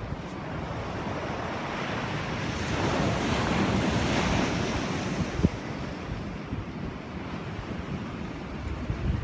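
Sea waves breaking on the shore: one wave swells to a loud rush about three seconds in and then fades away, with wind buffeting the microphone.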